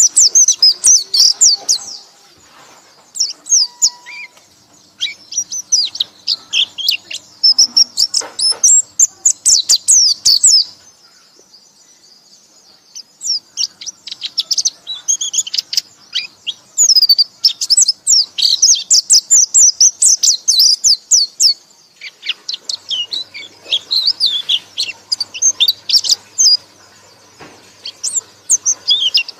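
Small songbird singing long bouts of rapid, high-pitched twittering chatter, each bout several seconds long, with brief pauses between them.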